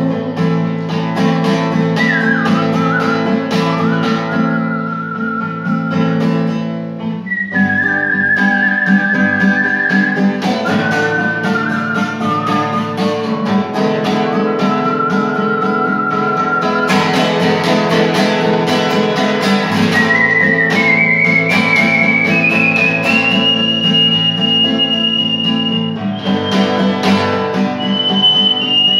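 Nylon-string classical guitar strummed in a steady rhythm, with a whistled melody over it starting about two seconds in and climbing higher in the second half.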